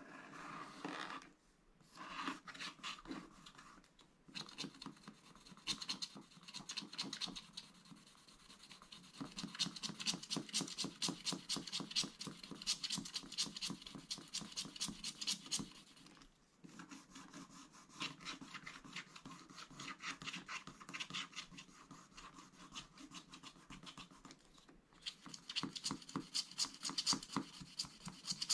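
A wooden scratch stylus scratches quick, short strokes through the black coating of a scratch-art card, pausing briefly a few times.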